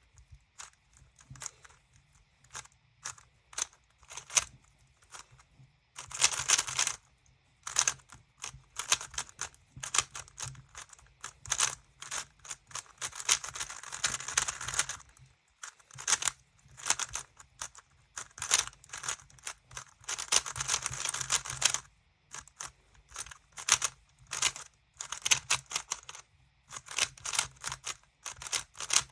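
GAN 356 Maglev speedcube being turned by hand during a timed solve: rapid runs of plastic clicks and clacks, with short pauses between the fast bursts of turning.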